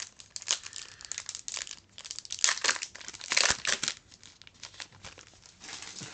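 Crinkling and tearing of a Digimon Card Game booster-pack wrapper being opened by hand, a run of crackles with the loudest rips about two and a half and three and a half seconds in.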